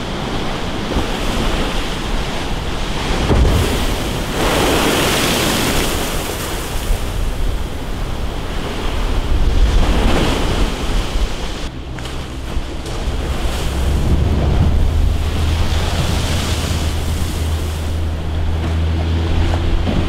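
Rough surf crashing and churning against a concrete seawall, swelling loudly several times as waves break. Wind buffets the microphone with a low rumble.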